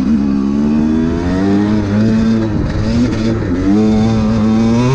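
TM 250EN two-stroke enduro motorcycle engine revving up and down under repeated blips of throttle, its pitch rising and falling several times.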